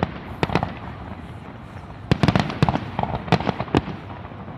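Aerial firework shells bursting in sharp bangs: a few in the first half-second, then a rapid run of bangs about two seconds in, and a few more near the end.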